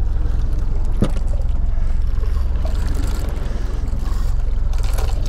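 Outboard motor running, a steady low rumble.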